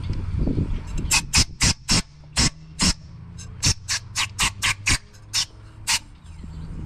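Compressed-air blow gun fired in about fifteen short hissing puffs, blowing off engine parts, over a low steady shop hum.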